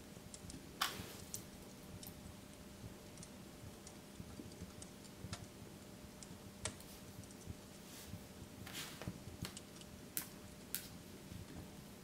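Sparse typing on a laptop keyboard: irregular single key presses and clicks, the sharpest about a second in, over a faint steady hum.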